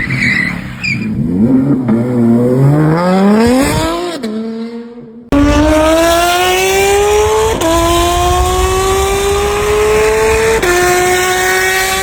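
Porsche sports-car engine revving up and down, climbing to a peak, then dropping back and fading. After an abrupt cut, an engine pulls hard under acceleration, its pitch rising steadily with two upshifts, about two and five seconds after the cut.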